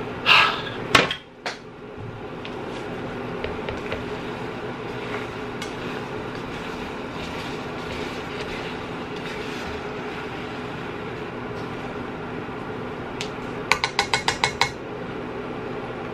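Glass pan lid knocking against the pan twice as it is lifted off and set down, then wooden chopsticks stirring noodles in a nonstick pan over a steady background hum. Near the end comes a quick run of about eight light clicks of the chopsticks against the pan.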